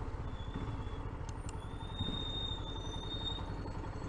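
Royal Enfield Himalayan's single-cylinder engine running at low town speed, a steady low thrumming. A thin high whistle runs through the middle.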